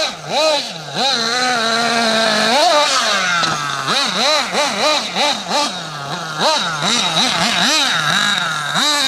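Nitro RC buggy's small glow-fuel engine revving up and down in quick throttle blips while driven on dirt, holding one steady rev for about a second and a half near the start, then rising and falling about twice a second.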